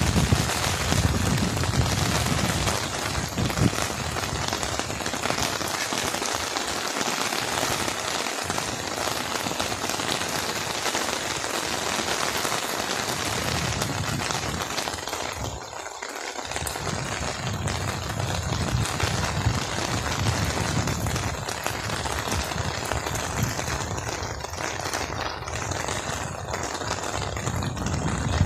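Steady rain falling on a wet road, foliage and flooded rice paddies, with a low rumble underneath that comes and goes.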